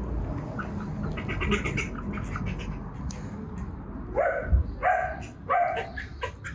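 A dog barking several times, starting about four seconds in, over a low, steady background.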